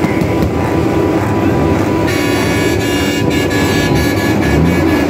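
Truck engines running, with a horn sounding a steady chord from about two seconds in.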